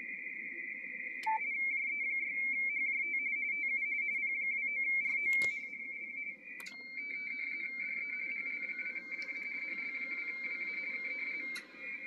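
RTTY radioteletype signal from the P29RO station on the 17 m band, heard through a Yaesu shortwave transceiver: a fast two-tone warble around 2 kHz as the transmission keys between its mark and space tones. A few sharp clicks break in, and about halfway through the signal changes as a further tone joins it.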